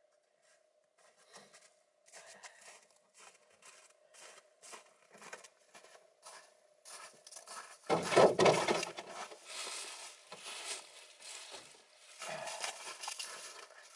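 Footsteps crunching on packed snow at a walking pace, about two to three steps a second, growing louder as the walker comes close and loudest from about eight seconds in.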